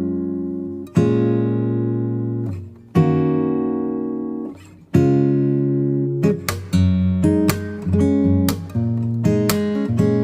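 Background music: an acoustic guitar strums full chords about every two seconds, each left to ring and fade, then settles into a quicker strummed rhythm about six seconds in.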